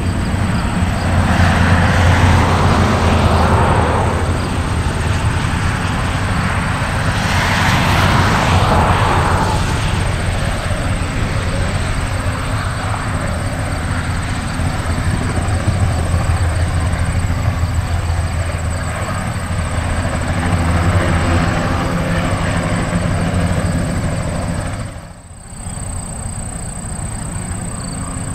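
Spray helicopter with a two-bladed main rotor flying low spraying passes: steady rotor and engine noise that swells twice as it comes close, about two and eight seconds in. The sound dips briefly and sharply near the end.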